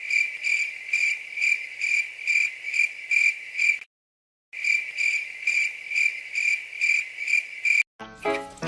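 Cricket chirping, a high pulsing trill repeating a little over twice a second. It drops out completely for about half a second near the middle, then resumes.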